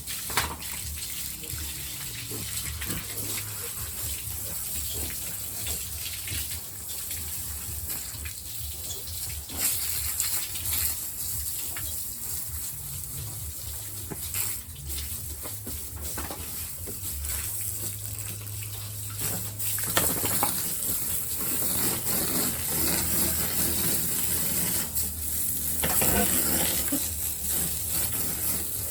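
Water gushing and splashing from a hose as a pig pen is washed down, with a steady low hum underneath.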